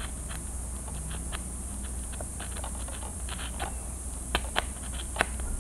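Hobby knife cutting into a foam model-airplane wing: scattered small clicks and scratches, with a few sharper ticks toward the end.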